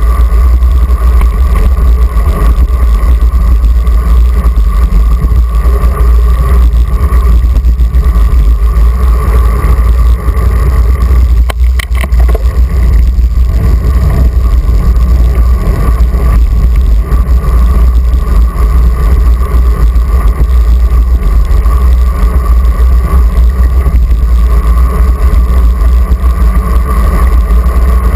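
Wind buffeting on a handlebar-mounted action camera's microphone as a road bike rides along: a loud, steady low rumble. A brief knock comes about twelve seconds in.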